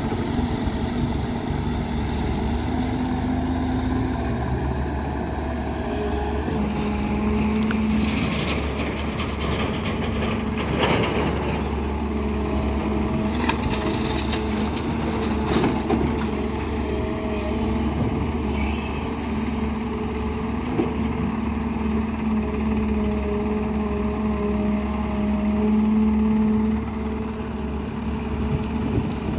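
JCB 205 tracked excavator's diesel engine running steadily alongside idling tractor engines. Between about 7 and 16 seconds in there are several knocks and clatters as the bucket digs soil and dumps it into a tractor trolley.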